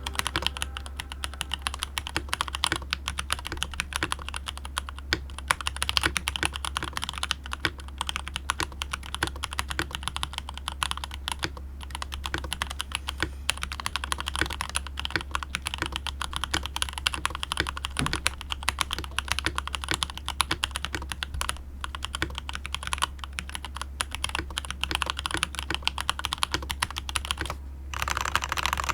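Steady fast typing on a Mode Eighty mechanical keyboard with SP-Star Luminous linear switches, an FR4 plate and GMK Space Cadet keycaps: a dense run of creamy keystroke clacks, with a short pause about a second before the end.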